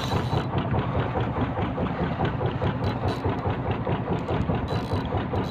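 A fishing boat's engine running steadily with a fast, even pulse.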